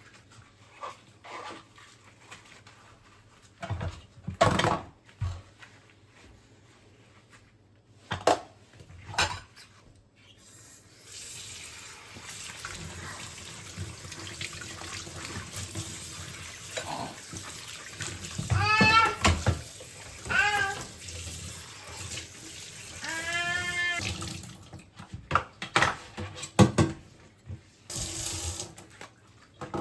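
Tap water running into a sink in a steady hiss for about fourteen seconds, with a few short pitched sweeps over it. Scattered knocks and clicks from objects being handled come before it and after it stops.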